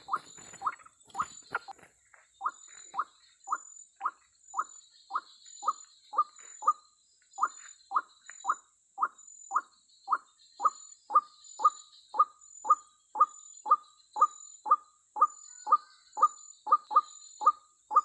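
White-breasted waterhen (ruak-ruak) calls: a short, loud downward 'kruak' note repeated about twice a second, without a break. For the first two seconds it is mixed with the rustling flaps of the bird struggling in a snare.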